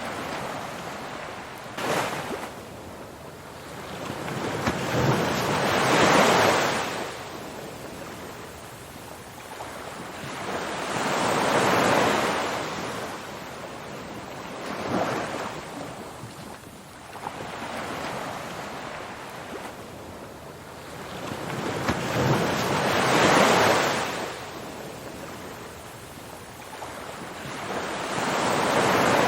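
Ocean surf: waves washing in and drawing back in slow swells of hiss that rise and fade every few seconds.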